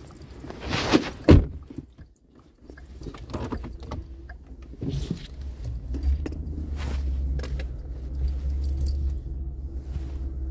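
A couple of sharp knocks, then a vehicle engine starts running with a steady low hum, with loose metal jangling and rattling over it.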